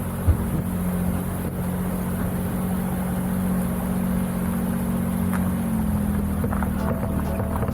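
Small car engine droning steadily on the road, its pitch stepping up slightly about six seconds in.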